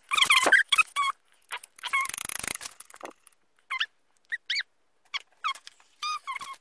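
Repeated short, high-pitched squeaking whines from an animal, each bending in pitch, clustered at the start, with a brief rustle about two seconds in and more scattered squeaks later.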